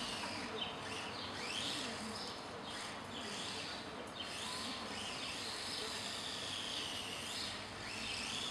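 RC car's motor whining, its pitch rising and falling over and over as it speeds up and slows, with a quick climb about a second in and another near the end.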